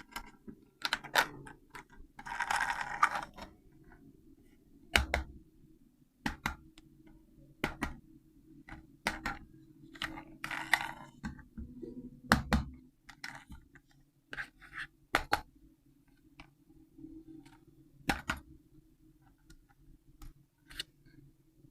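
Hands handling an RC toy car and its packaging: irregular sharp clicks and knocks about once a second, with short rustles about two seconds in and again about ten seconds in, over a faint steady hum.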